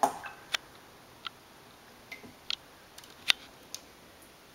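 A series of sharp, irregular clicks and taps, about eight of them, like small hard objects tapping together.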